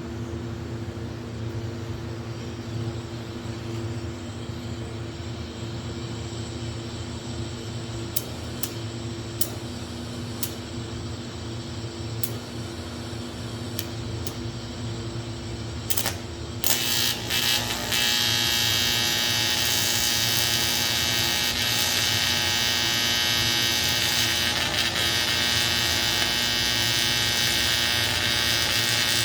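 A welding machine humming, with a few clicks, then from about two-thirds of the way in an AC TIG arc on aluminium striking and buzzing steadily and loud. The welder's breaker is weak and keeps tripping.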